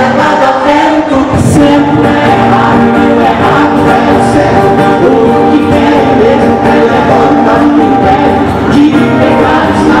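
Live Portuguese-language gospel song: a man and a woman singing together over strummed acoustic guitars, one of them a twelve-string.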